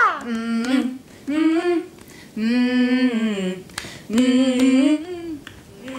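Women's voices singing a slow wordless tune in four phrases of held notes with a slight waver. The first note slides down from high, and the longest note comes in the middle.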